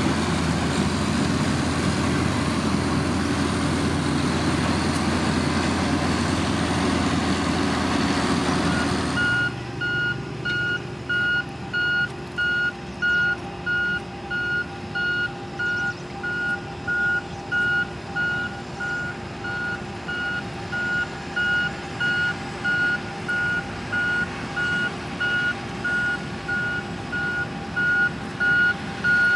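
Heavy road-building machine's diesel engine running loud, then about nine seconds in the engine noise drops and a reversing alarm starts beeping steadily, a little more than once a second, over the lower engine sound.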